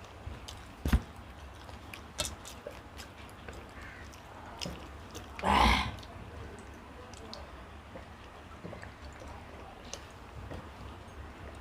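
Chewing and small mouth and eating clicks of people eating mutton biryani. There is a sharp click about a second in and a short, louder noisy sound near the middle.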